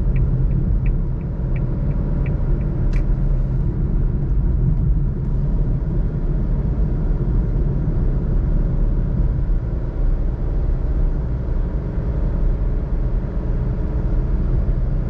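Suzuki Alto 660cc three-cylinder engine cruising at low revs in a high gear, heard with road noise as a steady low drone and rumble. A light, evenly spaced ticking runs through the first three seconds.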